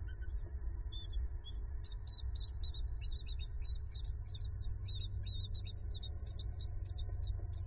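Bald eagles chittering during mating: a fast run of short, high, squeaky notes that starts about a second in and goes on almost without pause, over a steady low rumble.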